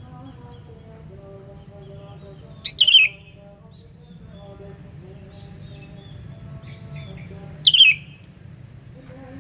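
Sooty-headed bulbul (kutilang) calling: two loud, short calls about five seconds apart, each a quick run of notes falling in pitch. A faint steady low hum lies underneath.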